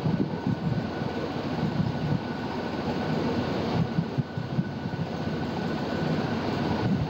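Steady rushing background noise with a faint, steady high whine running through it.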